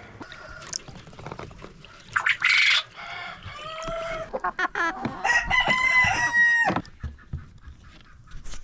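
Chickens clucking and squawking, with a rooster crowing once, one long held call of about a second and a half, a little past the middle.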